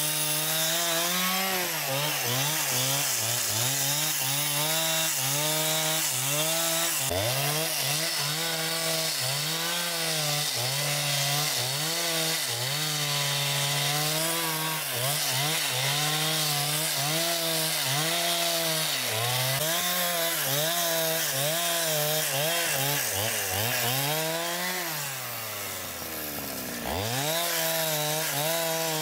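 Small two-stroke chainsaw cutting wood, its engine speed dipping and recovering over and over as the chain bites. Near the end it drops to a low idle for a moment, then revs sharply back up.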